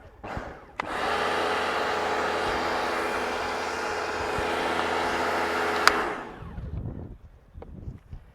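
Repaired electric pressure washer test-running: the motor and pump start suddenly about a second in and run steadily with a hum and hiss, then a click comes shortly before the sound winds down and stops. The steady run shows the rebuilt unit and its switch working.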